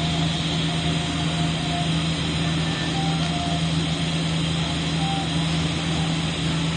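TIG welding arc running steadily: a constant electrical buzz with a hiss over it.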